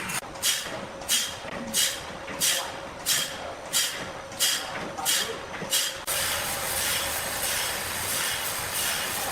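Sawmill machinery running: a regular hissing pulse, about three every two seconds, for the first six seconds, then a steady rushing noise.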